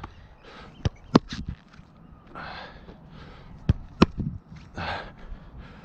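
A goalkeeper breathing hard close to the microphone, a breath every two to three seconds, with sharp thuds of a football hitting the gloves and being caught, about a second in and again around four seconds in.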